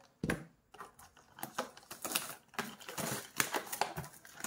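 Small cardboard product box being handled and opened by hand: a run of irregular light taps and clicks of card.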